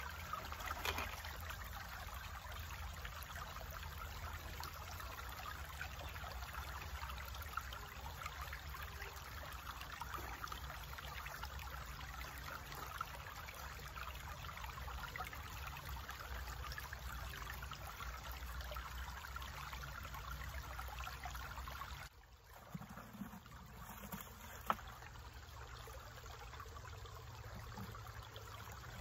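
Shallow creek water running and trickling through small sluice boxes set in the stream, a steady rushing noise that drops noticeably quieter about three-quarters of the way through.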